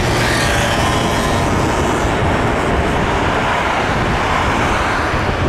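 A Boeing 747-400's four turbofan engines passing low overhead on final approach: a loud, steady jet rumble and rush, with a faint whine drifting slightly lower in pitch in the first couple of seconds.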